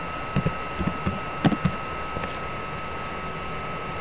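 A handful of computer keyboard keystrokes, short sharp clicks spread over the first two and a half seconds, over a steady background tone.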